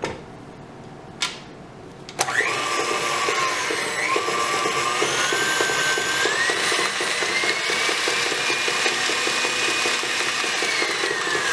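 KitchenAid Ultra Power stand mixer switching on about two seconds in and running with its flat beater in a bowl of icing. Its motor whine steps up in pitch as the speed lever is pushed higher, then falls near the end as the speed is turned down. A short click comes just before it starts.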